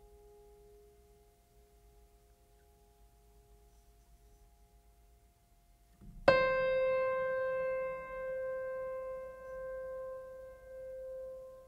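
Background piano music: faint held tones, then a loud piano note struck about six seconds in that rings on and slowly fades.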